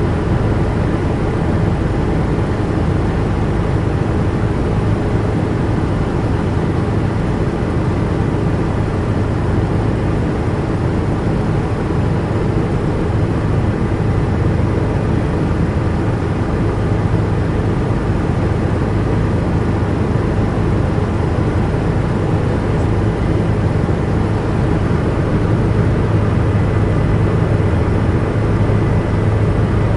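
Helicopter cabin in flight: steady, dense engine and rotor noise, strongest in the low bass, with a faint steady high tone over it.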